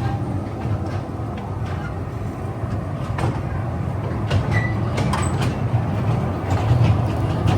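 Small sightseeing ride-on train running steadily, a low rumble with a few light clicks and rattles.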